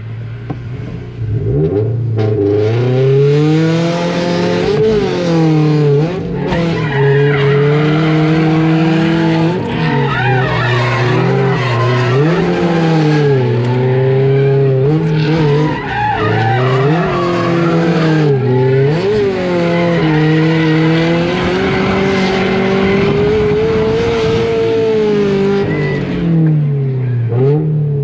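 Drift car engine held high in the revs, its pitch rising and falling again and again as the throttle is worked, with tyres screeching under sustained wheelspin. It comes in loudly about a second and a half in and eases off near the end.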